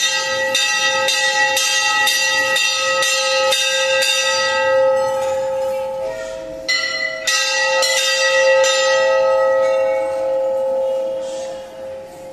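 Hanging brass temple bell rung by devotees, struck again and again about twice a second so that its ringing overlaps. The strikes pause briefly near the middle, start again, then die away as the ringing fades near the end.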